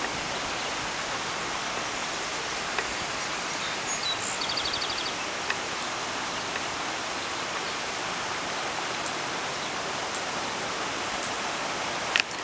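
Steady outdoor ambient hiss, even and without pitch, with a short rapid trill about four seconds in and a sharp click near the end.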